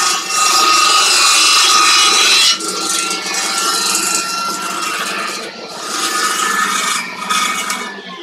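Homemade table saw driven by a washing-machine motor, its blade cutting through thin MDF at low speed, about 3000 rpm: a loud rasping cut over the steady whine of the motor and blade. The cut eases after about two and a half seconds and the sound dies away near the end.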